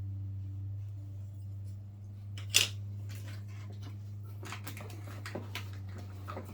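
Small objects being unpacked and handled: one sharp click about two and a half seconds in, then a run of lighter clicks and taps near the end, over a steady low hum.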